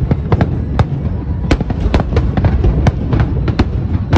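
Aerial firework shells bursting in rapid succession: sharp bangs, several a second, over a continuous low rumble of overlapping explosions.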